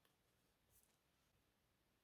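Near silence: room tone, with a faint tick at the start and a brief, faint high rustle a little before the middle.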